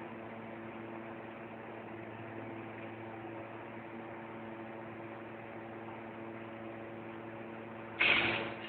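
Steady electrical hum with a hiss of noise, then a sudden short, loud rush of noise near the end.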